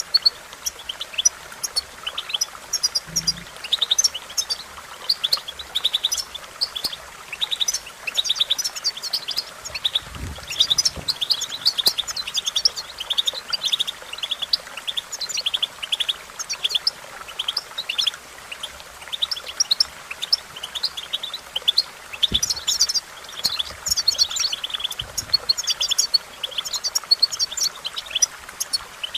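European goldfinch song: a continuous run of quick, high twittering chirps, broken by short pauses.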